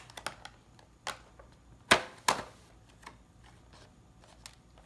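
Scissors snipping through a rigid clear plastic clamshell pack: scattered small clicks and crackles, with two loud sharp snaps of the plastic about two seconds in.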